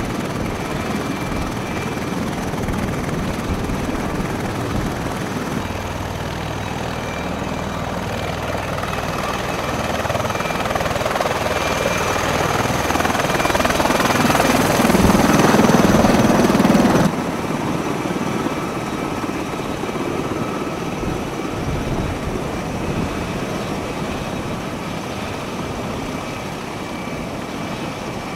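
Bell Boeing V-22 Osprey tiltrotor running on the ground, a heavy, steady rush of rotor and turbine noise. It grows louder to a peak well past the middle, then drops suddenly and carries on at a lower level.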